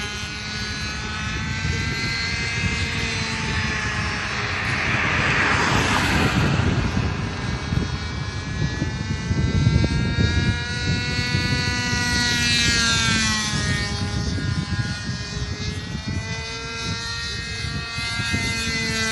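A SPAD Debonaire 46 RC model airplane's engine running in flight, its pitch rising and falling as the plane passes and turns. Wind rumbles on the microphone underneath.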